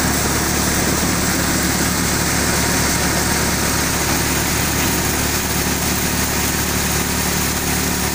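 Grain thresher running steadily, threshed grain pouring from its outlet chute: a loud, even mechanical drone with a hiss over it.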